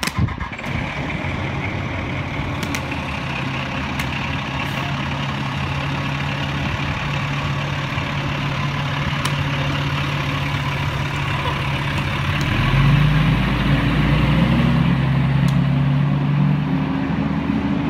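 Pierce fire engine's diesel engine running steadily at low revs, then revving up about two-thirds of the way through as the truck pulls away, its pitch rising and the sound growing louder.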